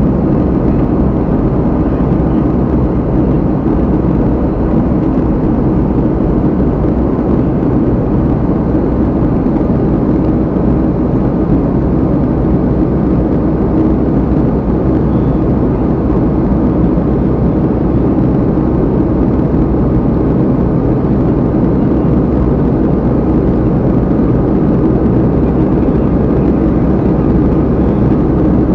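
Steady, loud engine drone and rushing noise of a vehicle in motion, heard from inside it.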